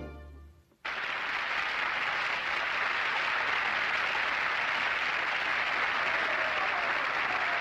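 The tail of an orchestral chord dies away, and about a second in an audience's applause breaks out and keeps up steadily.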